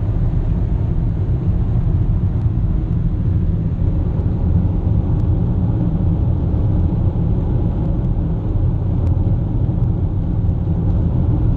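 Steady cabin noise of a Toyota Camry driving at high speed across salt flats, heard from inside the car: a low, even rumble of tyres and wind with the engine underneath.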